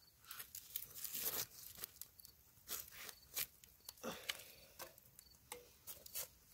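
Metal tongs scraping and knocking against a cast iron Dutch oven lid as charred embers are shifted and settled on top, in faint, irregular clicks, crunches and scrapes.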